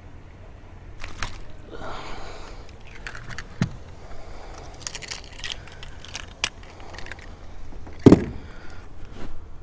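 Clicks, knocks and rattles of rod, net and tackle against a fishing boat while a smallmouth bass is landed by hand, with one heavy thump a little after eight seconds in.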